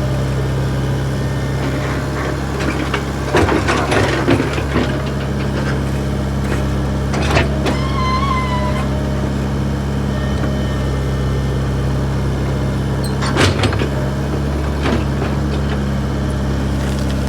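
Backhoe's diesel engine running steadily, with several sharp clanks and knocks from the machine at work and a brief high squeal about eight seconds in.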